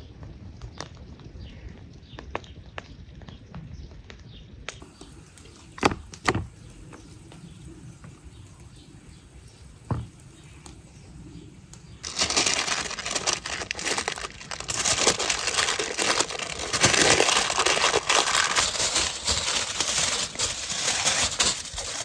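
A wood fire crackles faintly, with a few sharp pops. About halfway through, loud crinkling starts: parchment paper and aluminium foil being folded and crumpled by hand around a whole raw chicken.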